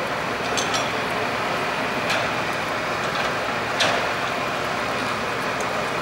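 Steady running noise of parked fire engines, with a few short clicks and a louder clank a little before four seconds in.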